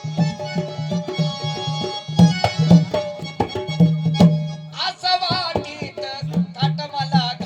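Instrumental Marathi folk music: a hand drum plays a quick, steady rhythm under held keyboard-like tones. About five seconds in, a high, wavering melody joins.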